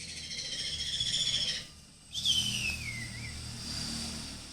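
Conure chick giving shrill, whistling cries while being handled. There is one long call, then after a short pause a louder call that slides down in pitch.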